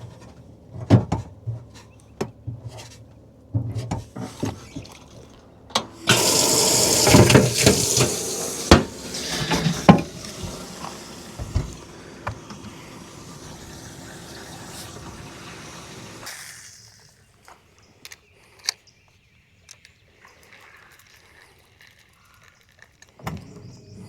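Water gushing for a few seconds, then running more softly and steadily until it stops abruptly. Scattered knocks and clicks come first.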